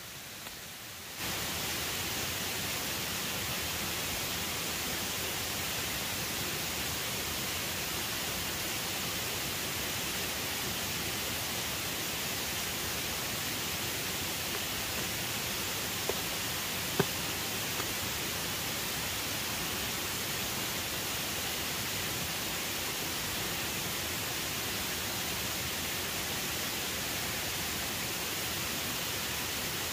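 Steady, even hiss of outdoor background noise that steps up about a second in and then holds level, with a couple of faint knocks a little past the middle.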